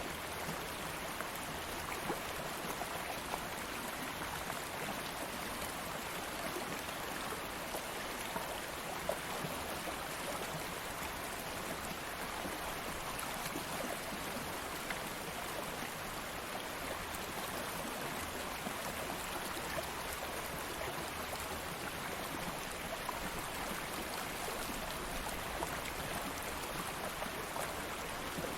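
Stream of water flowing steadily over stones, a continuous rushing babble with small splashes and trickles scattered through it.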